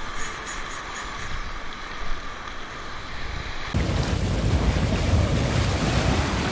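Wind buffeting the microphone over surf washing in the shallows; about two-thirds of the way in the wind noise abruptly becomes much louder and deeper.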